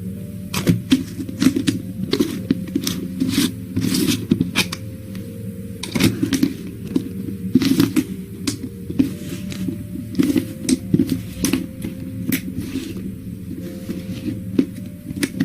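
Close-miked wet, sticky crackling and clicking, irregular and dense, over soft background music of steady low sustained notes.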